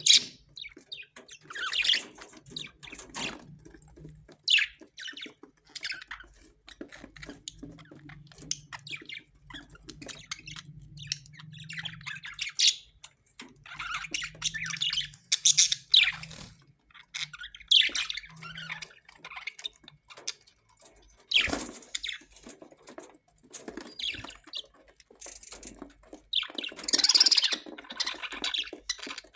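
Parrots calling: a steady run of short chirps and harsh squawks, coming at irregular intervals, several birds overlapping at times.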